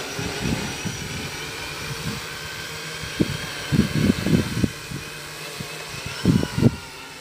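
Quadcopter's electric motors and propellers whining steadily in hover, the pitch of several high tones shifting slightly as it holds position. A few low gusts of wind on the microphone come in around the middle and near the end.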